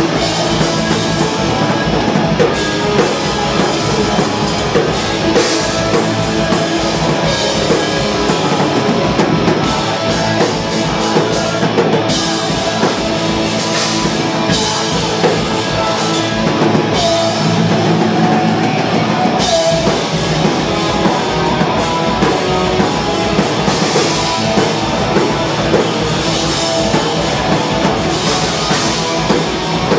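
Hardcore band playing live and loud: electric guitars through amp stacks over a drum kit, with steady drum hits throughout.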